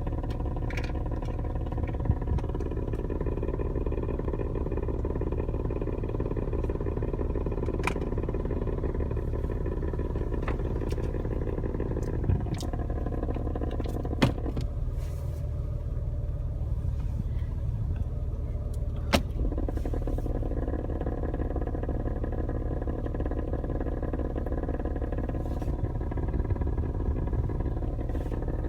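Jeep XJ idling at a standstill in drive, with a fluttering noise from behind the dashboard over the steady engine drone. The fluttering mid-range part fades out about twelve seconds in and comes back about seven seconds later, with a few sharp clicks along the way.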